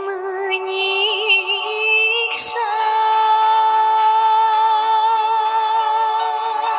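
A female singer holds long, wavering notes with vibrato over music. After a quick breath about two seconds in, she sustains one long note.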